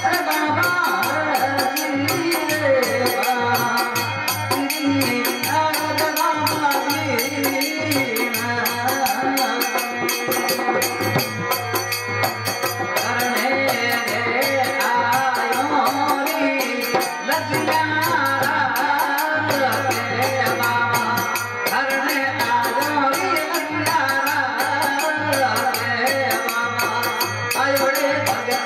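A male singer sings a Baba Ramdev devotional folk song into a microphone, accompanied by an electronic keyboard and a steady rattling percussion beat.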